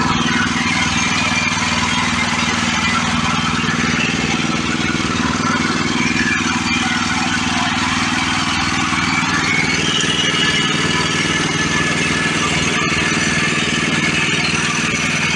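Woodland Mills portable bandsaw mill running, its small gasoline engine holding a steady speed as the band blade saws through a log.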